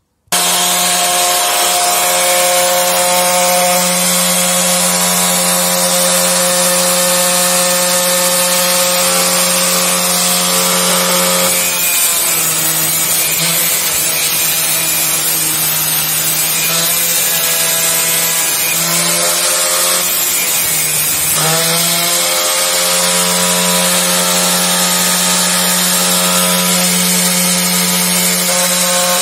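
Angle grinder with a cut-off disc, mounted in a cut-off stand, running at full speed with a steady whine that starts abruptly. About twelve seconds in, its pitch drops as the disc bites into metal under load, and about ten seconds later it rises back to full speed as the cut ends.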